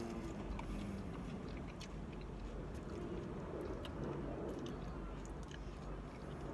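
Two people chewing and biting into breaded chicken nuggets with sauce: soft, wet mouth sounds with scattered small clicks.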